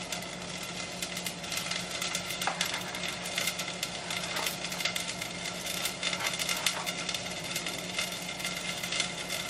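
Dry rice grains pouring from a plastic jar: a continuous dense pattering of tiny grain clicks.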